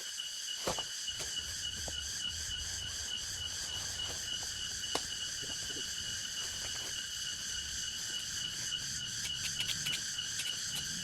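Steady chorus of rainforest insects: an even, high buzzing drone at several pitches, with a few short clicks and knocks, a small cluster of them near the end.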